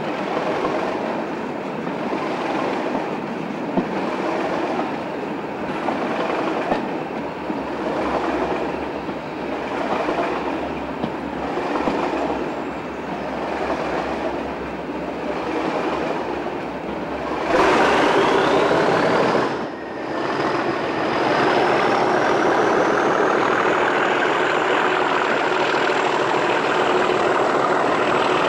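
Diesel-hauled train heard from an open carriage window: the wheels clatter over the rail joints in a regular clickety-clack. About two-thirds in the sound drops out briefly. After that it is louder and steadier, as the Class 37 locomotive's English Electric V12 diesel works hard, with a high whine climbing in pitch and then holding.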